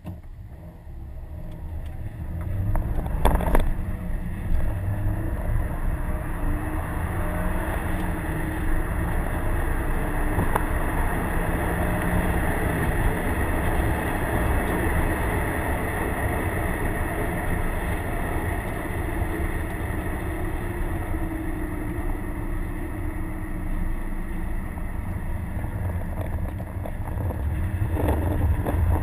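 Stock 2011 Subaru WRX's EJ255 turbocharged 2.5-litre flat-four heard from inside the cabin, pulling away from a standstill and getting louder over the first three seconds, then running steadily at speed.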